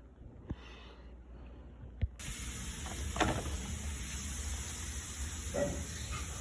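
Two sharp clicks, the second about two seconds in, followed at once by a steady hiss that goes on, with a couple of short louder sounds over it.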